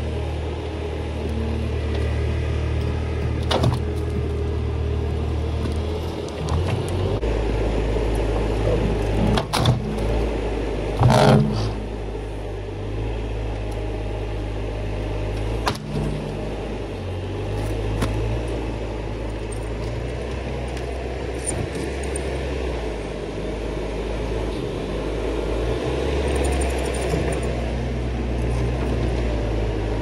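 Bobcat T590 compact track loader's diesel engine running steadily, its note shifting a few times as the machine drives and works the bucket. Several sharp knocks and clunks come from the steel bucket handling a log, the loudest about a third of the way through.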